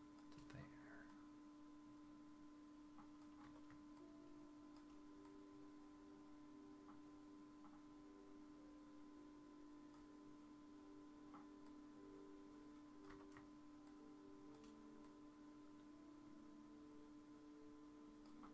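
Near silence: a faint steady electrical hum, with a few soft scattered clicks of a computer mouse.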